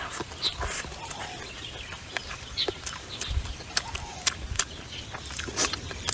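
Close-up crunching and smacking of someone chewing crispy food, with many sharp, irregular crackles.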